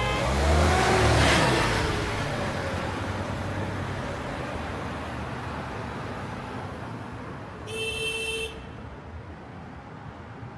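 A car passes close by on the road, loudest about a second in, then its tyre and engine noise fades away into light traffic. A short high-pitched tone sounds for under a second near the end.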